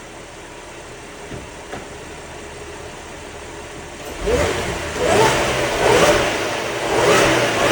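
Audi A7 engine idling quietly in neutral, then revved hard about four seconds in and blipped repeatedly, about four quick revs in a row.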